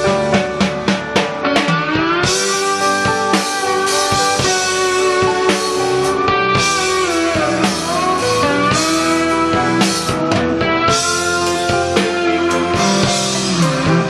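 Live rock band playing a slow ballad intro: electric slide guitar gliding through a melody over held organ chords, with a drum kit keeping time.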